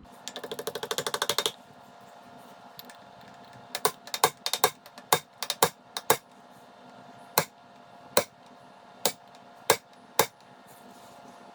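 A fast run of clicks, about fifteen a second and getting louder, as the mixer's planetary drive shaft is turned by hand. Then a dozen or so sharp metal taps, closer together at first and about a second apart near the end, as a pin is tapped back in through the shaft.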